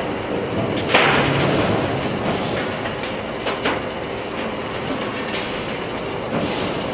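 Factory machinery running with a steady noise, broken by several sharp metallic clanks and knocks.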